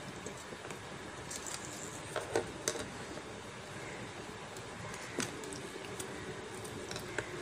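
Faint handling noise: a few light clicks and taps as the plastic housing and circuit board of an opened LED bulb are turned over in the hands, over a steady background hiss.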